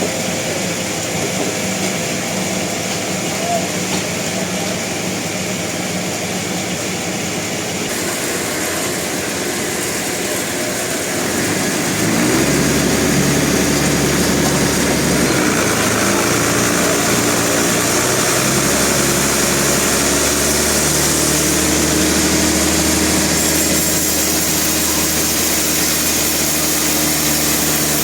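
Sawmill machinery running with a steady engine-like hum that grows louder about twelve seconds in, its pitch shifting in steps as the load changes.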